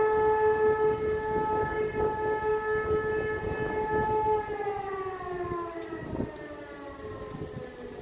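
E57 electromechanical civil-defence sirens sounding a steady tone, which from about halfway through falls in pitch and grows quieter as the sirens run down.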